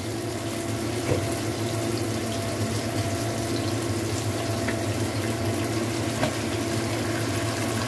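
Sliced shallots, garlic, chilies and tomato sizzling steadily in hot oil in a wok.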